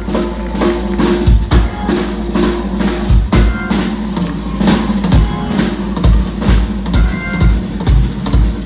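Live rock band playing, with the drum kit to the fore: bass-drum kicks and snare and cymbal hits over bass and guitar notes.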